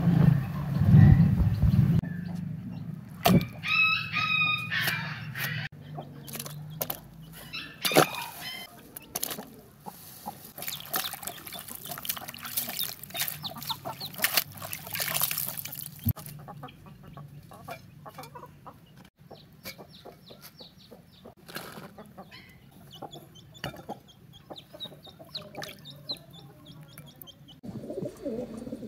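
A low rumble at the start, then chickens calling, with one long stepped call a few seconds in; later water splashing and sloshing as green chillies and coriander are rinsed by hand in a bucket.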